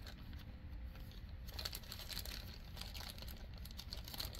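Plastic packaging crinkling and rustling faintly as it is handled, with small irregular clicks that grow busier from about a second and a half in.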